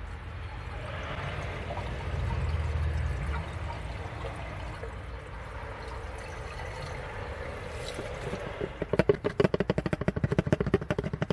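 Diesel poured into the Fiat 125p's four-cylinder 1300 engine through the oil filler as an engine flush, a steady trickling wash that is heaviest a couple of seconds in. From about nine seconds the engine is cranked over, in rapid, even pulses about seven a second, to run it with the flush in the oil.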